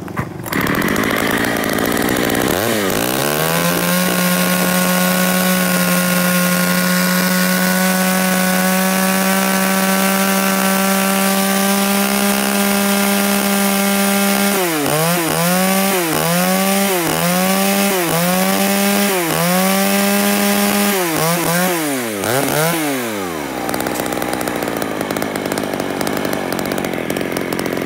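A 33 cc Echo 3300 two-stroke chainsaw engine running on test. It revs high at first and settles to a steady idle after about three seconds. From about halfway it is blipped through about seven quick revs, roughly one a second, then runs fast and steady near the end.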